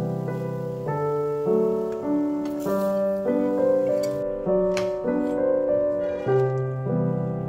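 Background piano music: a gentle melody over chords, the notes changing about twice a second.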